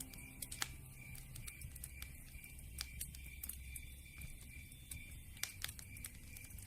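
Campfire crackling: irregular sharp pops and snaps, a few louder than the rest, over a low rumble.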